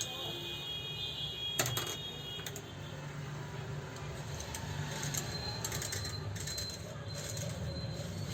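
Light clicks and taps, one sharper click a little over a second in and a handful more in the second half, over a steady low hum.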